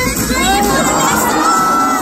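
Pop song playing loud over a concert sound system, with the audience shouting and cheering over it.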